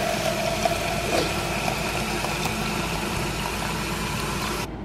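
Water running from a kitchen tap into a plastic cup of oats, a steady stream that cuts off abruptly near the end.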